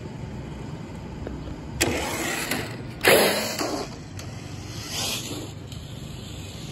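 Brushless-motor Traxxas TRX-4 RC truck driving on pavement in bursts of throttle: a burst about two seconds in, a louder one about a second later, each fading quickly, then a smaller swell near the end.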